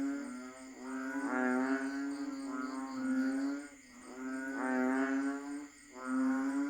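A chorus of banded bullfrogs (Asian painted frogs) giving long, low, droning calls, several frogs overlapping, one call after another with short breaks.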